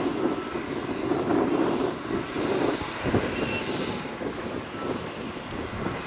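Matador Shantui ME315 tracked excavator's diesel engine running under hydraulic load as the machine lifts a full bucket of soil and swings. The engine note is strongest for the first half and eases off about three seconds in, with a few short knocks around then.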